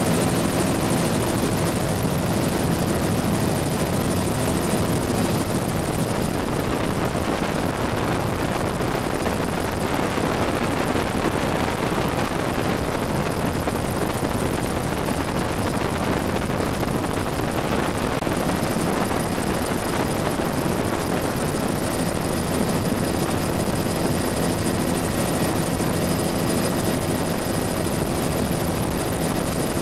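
Bell 206 JetRanger helicopter in flight, heard from inside its doors-off cabin: the single turbine engine and rotors make a steady, unbroken drone with a constant whine, mixed with rushing air.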